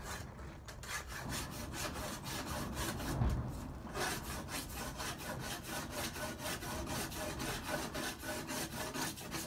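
Triangular rasp filing along the dovetail track of a sled runner in quick, even strokes, a few a second, smoothing out rough and damaged spots. A soft low knock comes about three seconds in.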